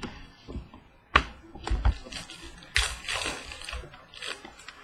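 Trading cards being handled: a stack of cards shuffled and slid through the hands, with a rustling stretch about halfway through and several sharp taps as cards are knocked down onto the table.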